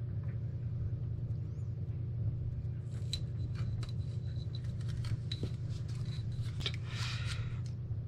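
Black vinyl electrical tape being stretched and pressed down the sides of a cylindrical housing: light crackling and small clicks from about three seconds in, with a short burst of crackle near the end. A steady low hum runs underneath.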